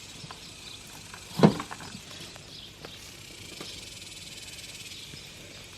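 Hands digging through soil in a potato container, with light scattered clicks and one sharp knock about a second and a half in. A steady high chirring of evening insects runs underneath.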